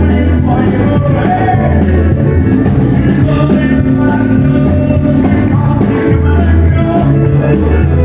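Live country-style music: a man singing into a microphone over his strummed acoustic guitar, with a deep bass line underneath, played loud through the PA.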